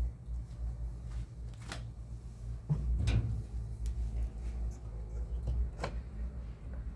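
A few sharp clicks and knocks of washing-machine parts being handled and pushed into place while the beam is fitted into the actuator under the machine's base, over a low rumble of handling noise.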